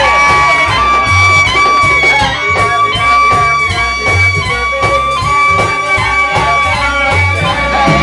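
Live jazz combo playing: a trumpet holds a high note for long stretches over an upright bass stepping through a bass line, with a steady beat.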